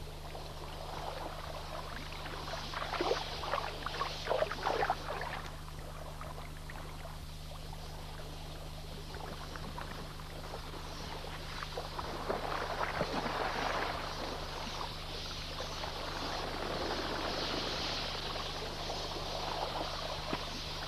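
Splashing and rushing noise from a large flock of red-billed queleas at a waterhole, coming in uneven bursts, over a steady low hum.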